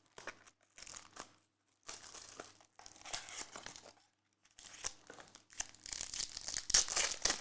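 Crinkling and tearing of trading-card pack wrappers and plastic as a pack is opened and the cards are handled, in irregular rustling bursts that are loudest near the end.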